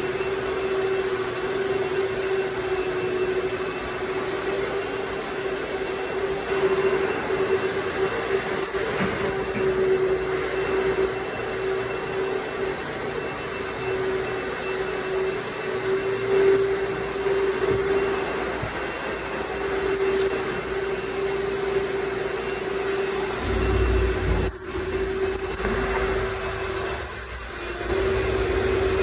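A motor-driven machine running steadily: a constant hum over an even hiss, with a low rumble joining about 23 seconds in.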